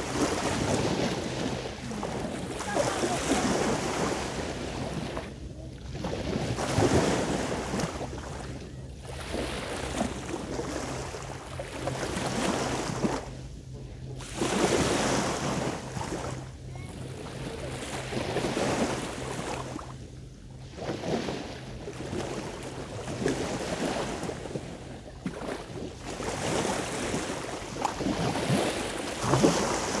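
Sea waves washing onto the shore, swelling and falling back every few seconds, with wind buffeting the microphone. A steady low hum underneath stops near the end.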